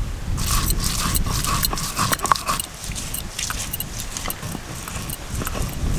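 Crab shells being cracked and pulled off by hand, giving many sharp, irregular clicks and snaps.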